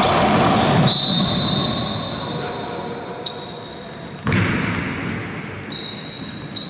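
Basketball game play in a reverberant gym: sneakers squeaking on the court and the ball bouncing, with players' voices in the hall and a sudden louder burst of noise partway through.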